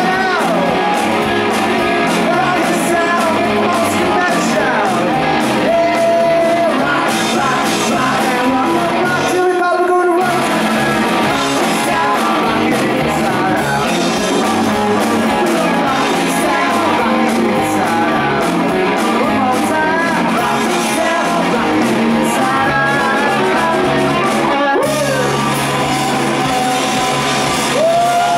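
Live rock band playing loud: electric guitars, bass and drum kit with a singer. The music breaks off for a moment just before ten seconds in, then comes back in.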